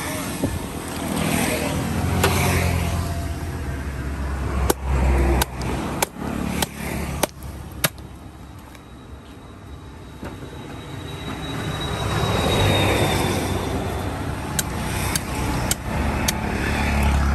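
Knife or cleaver chopping through a large catla fish on a cutting block in sharp, evenly spaced strokes about half a second apart: a run of six about a third of the way in, and four more near the end. Road vehicles pass with a low rumble that swells and fades.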